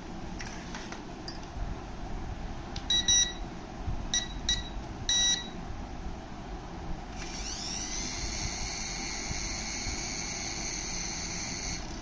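A few short electronic beeps from the toy RC helicopter set, then, about seven seconds in, the HX708 helicopter's small electric rotor motors spin up with a rising whine that settles into a steady high-pitched whine.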